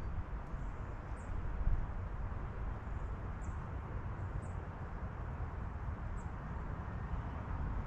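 Wind blowing through trees, a steady rushing with a low, uneven rumble, and a few faint, short, high-pitched bird chirps.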